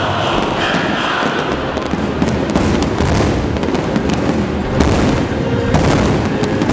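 A dense barrage of aerial fireworks shells bursting together, with many rapid, overlapping bangs and crackles and no let-up.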